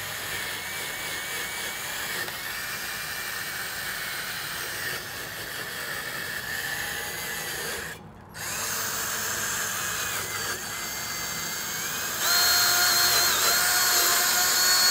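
Cordless drill spinning a wire cup brush against the rusty steel backing plate of a drum brake, scrubbing the shoe contact points clean. It stops briefly about eight seconds in, then runs again and gets louder with a steadier whine near the end.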